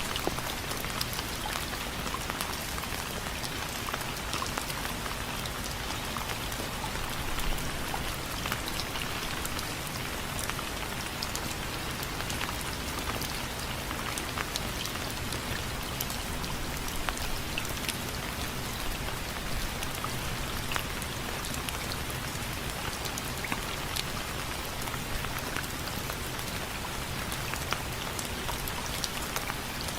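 Steady rain, with many separate drops tapping on window frames.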